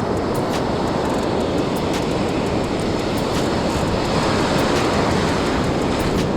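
Steady, dense rush of breaking surf and wind on the beach, with faint light ticks scattered through it.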